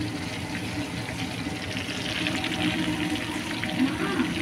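Breaded shrimp deep-frying in a pan of hot oil: a steady sizzle with fine crackling.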